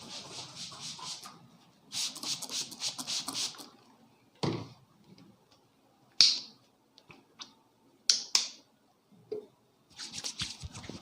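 A barber's hands massaging a head. Bursts of quick rhythmic strokes on hair and skin come at the start, from about two seconds in, and again near the end. Between them are a few separate sharp snaps, the loudest about six seconds in.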